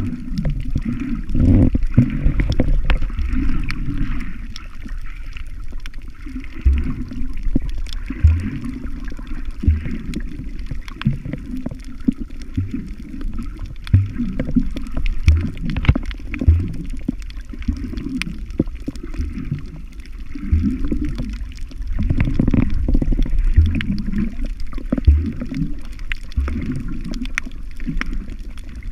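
Muffled underwater water noise as heard by a submerged camera: sloshing and gurgling with dull low thumps every second or two.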